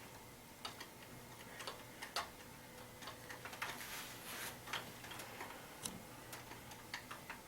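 Faint, irregular light clicks and ticks as a screwdriver works the screw of a factory AR-15 pistol grip.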